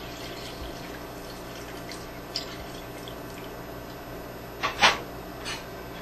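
Milk being poured steadily from a measuring cup into a stainless steel pan of butter-and-flour roux, a faint, even liquid pour. Near the end come two short clinks and a smaller third one.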